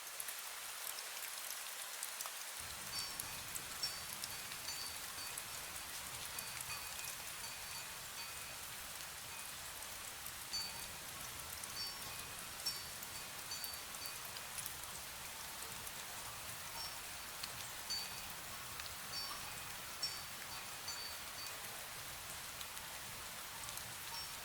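Steady fine rain falling, with small drops ticking, while a wind chime rings now and then with short high tones at a few pitches.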